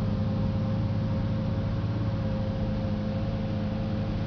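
2004 Lamborghini Gallardo's V10 engine idling steadily, heard from inside the cabin: a low, even hum with a thin steady tone above it.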